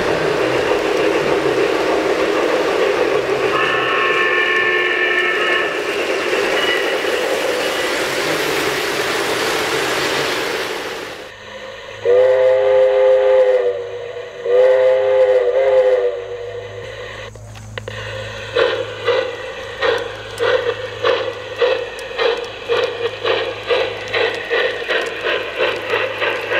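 A three-rail O-scale model freight train rattles along its track, with a brief tone about four seconds in. After a cut, a model steam locomotive's whistle blows two long blasts. Then the wheels of passing model freight cars click over the track in a steady rhythm, a little over two clicks a second.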